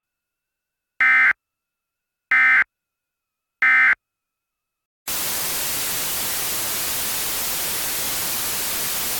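Three short bursts of Emergency Alert System SAME digital data tones, about a second apart, of the brief kind that sends the end-of-message code that closes an alert. About five seconds in, a steady hiss of white-noise static begins.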